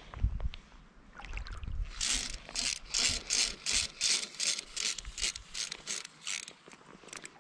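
Fly reel's click-and-pawl ratchet chattering as line is wound in, in a regular run of short rasping bursts, about three a second, that starts about two seconds in and stops a second before the end.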